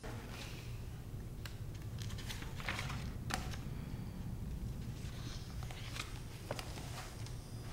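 Steady low room hum in a classroom, with scattered small clicks and a few brief paper rustles from a paperback's pages being handled and turned.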